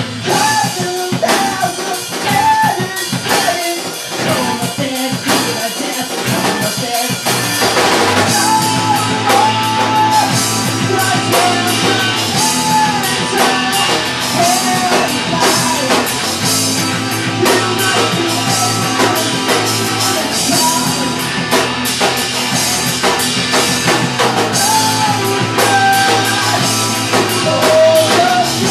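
Rock trio of electric guitar, bass guitar and drum kit playing a song together. The sound fills out and gets louder about eight seconds in.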